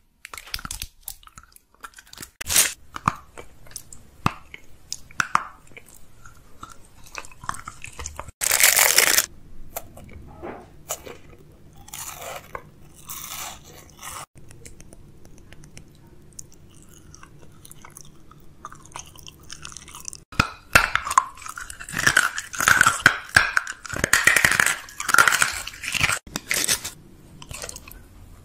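Close-miked eating sounds: scattered bites and mouth clicks, one loud crunch about nine seconds in, then a long, dense run of chewing near the end.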